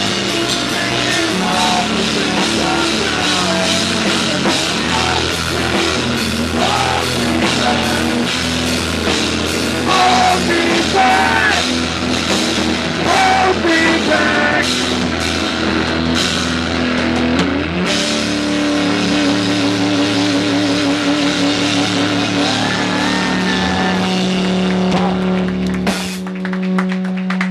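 Live punk-rock band playing loud with drum kit and amplified instruments. About eighteen seconds in the drumbeat stops and held notes ring on, one of them wavering, with a final crash shortly before the end.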